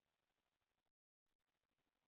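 Near silence: faint background hiss, with a brief total dropout about a second in.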